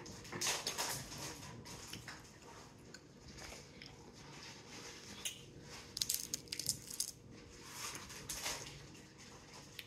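Boiled crab shell cracking and crunching as the crab is broken apart by hand, in short clusters of sharp cracks about half a second in and again around six to seven seconds in, with chewing in between.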